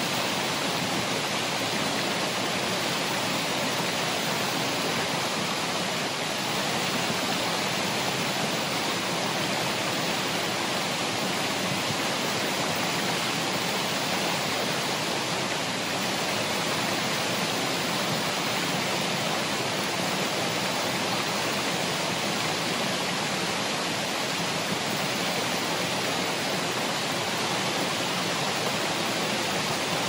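Ariake Falls, a waterfall, pouring: a steady, even rush of falling water that does not change.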